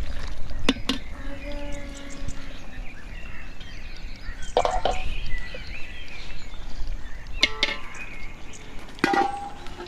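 Outdoor ambience with a steady low hiss, broken by three short, harsh animal calls and a couple of sharp clicks.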